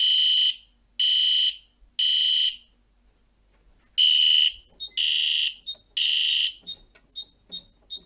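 EST Genesis horn sounding in the temporal-three evacuation pattern: two rounds of three half-second blasts, then it stops. Near the end, short high beeps come from the fire alarm control panel's keypad as keys are pressed to disable the notification circuit.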